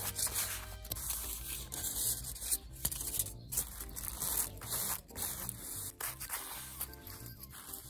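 Aluminium foil being rubbed and pressed flat with a plastic ruler: crinkly scraping in repeated strokes, over quiet background music.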